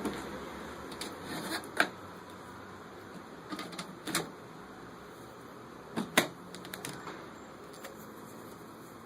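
Plastic clicks and knocks from a pedal-powered mini washing machine being worked, irregular, with a few sharp knocks standing out: one about two seconds in, one about four seconds in and two close together about six seconds in.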